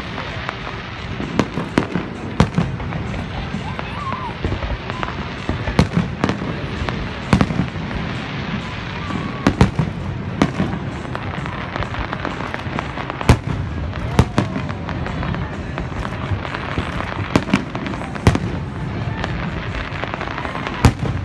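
Fireworks display: aerial shells bursting in irregular sharp bangs, sometimes several close together, over a steady background din.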